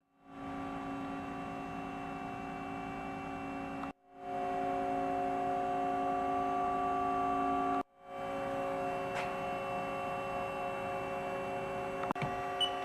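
Haas ST20 CNC lathe humming steadily while powered up and idle, a hum of several fixed tones. It cuts out abruptly twice and fades back in, and a couple of faint clicks come near the end.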